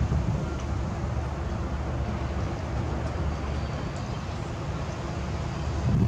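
Steady low outdoor rumble with wind buffeting the microphone.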